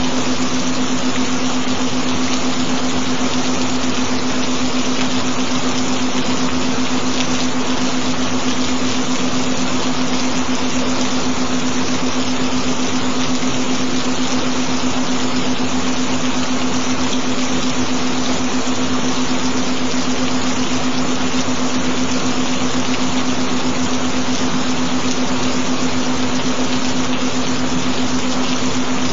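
Steady rain sound, an even hiss of falling water, with a continuous low tone held under it.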